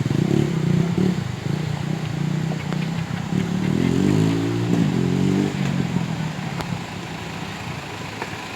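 An off-road vehicle's engine running close by, revving up and down about halfway through, then fading away in the last few seconds.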